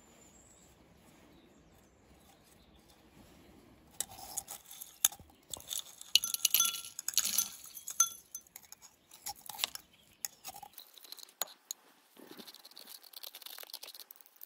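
Dark granular crude boron, still mostly slag, poured into a glass beaker, the grains pattering and clinking on the glass in irregular crackling clicks starting about four seconds in.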